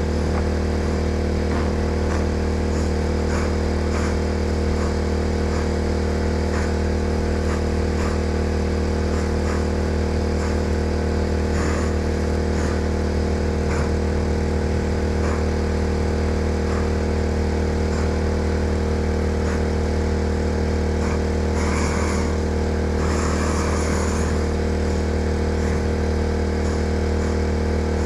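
Portable generator engine running at a steady speed, a constant hum throughout. Two short bursts of rustling noise about three-quarters of the way through.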